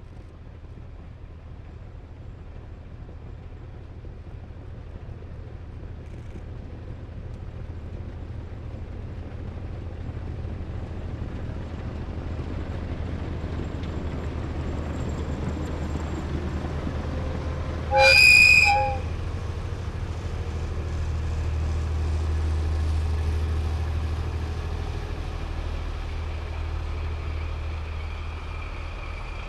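Train approaching with a low rumble that grows steadily louder, sounding one short horn blast about two-thirds of the way through; the rumble peaks a few seconds later and then eases.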